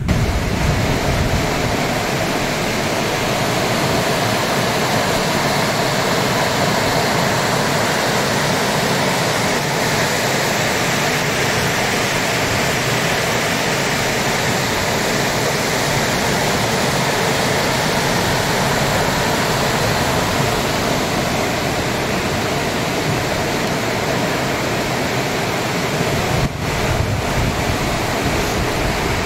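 Steady rushing of a shallow, stony river, an even hiss of flowing water without breaks.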